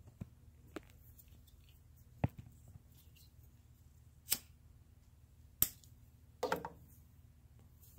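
A handful of sharp clicks and taps, scattered a second or more apart, the last a short rattly cluster, over a low steady hum.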